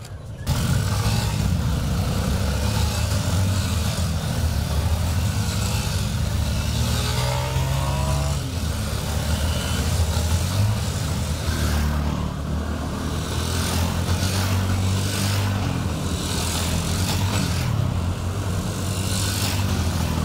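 A column of dirt-style motorcycles riding past one after another, engines running steadily; one engine revs up in a rising pitch about seven seconds in.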